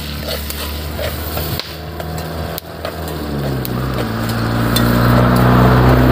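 A truck engine running steadily, then rising in pitch and getting louder about three seconds in. A few light metal clinks, like a spoon on a metal cooking pot, come in the first three seconds.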